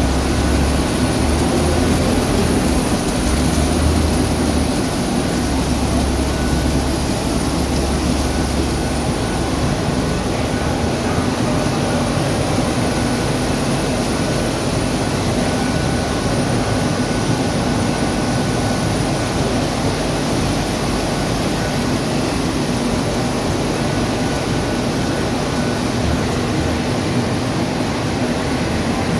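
Steady drone of industrial machinery on a film-converting factory floor: a hum with a faint steady whine above it. An uneven low rumble comes and goes during roughly the first nine seconds.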